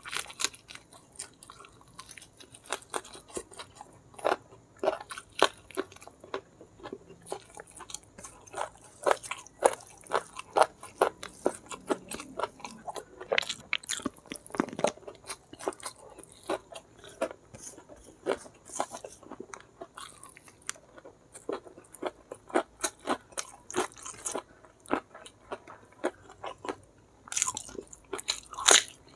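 Chewing on a big mouthful of rice with blood cockles in chili sambal: a constant run of wet chewing and smacking clicks. Near the end come louder crisp crunches as a raw cucumber is bitten.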